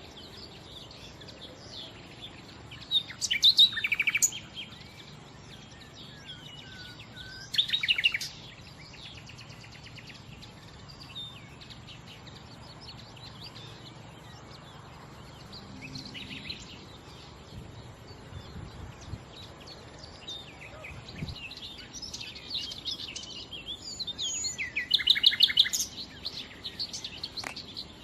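Nightingale singing in separate phrases, each a fast run of repeated notes and trills, with short pauses between; a longer, busier phrase comes near the end.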